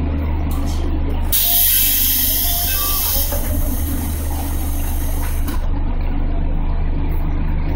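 211 series electric train standing at a platform: compressed air hisses out suddenly about a second in, strongest for about two seconds, then tails off, over the steady low hum of the train's equipment.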